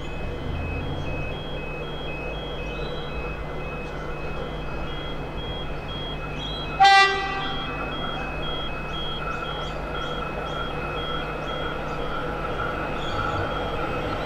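X'trapolis 100 electric train approaching a platform and sounding one short horn blast about halfway through. Its running noise grows as it draws in.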